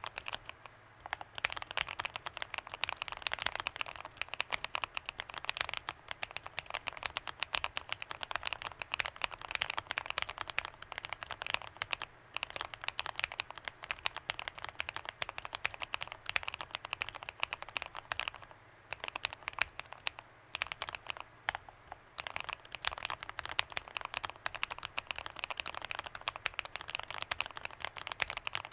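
Fast typing on a mechanical keyboard fitted with Kailh BCP frankenswitches (Cherry HG top housing, Kailh Black stem, 70 g long two-stage spring, JWK red bottom housing): a steady clatter of keystrokes broken by a few short pauses.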